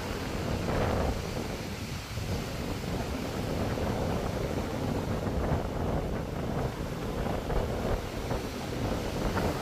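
Wind buffeting the microphone, with the wash of the sea underneath.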